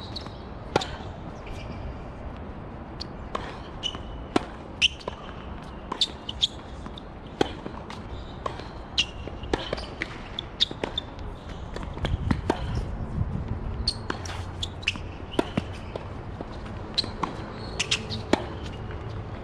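Tennis balls struck by rackets and bouncing on a hard court during rallies: sharp, short hits coming about once a second.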